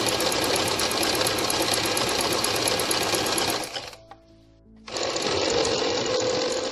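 Domestic sewing machine running at a steady speed, zigzag-stitching over a thin elastic cord guided by a pintuck foot. It stops for about a second near the middle, then runs again.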